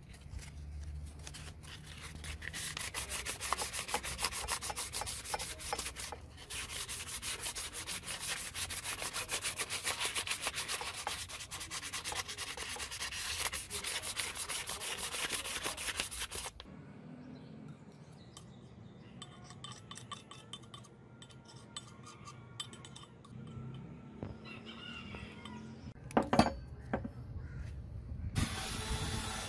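Sandpaper rubbed by hand over a brass sword hilt in quick rhythmic back-and-forth strokes, which stop abruptly about halfway through. Later comes a single sharp knock, and near the end a small rotary tool starts running.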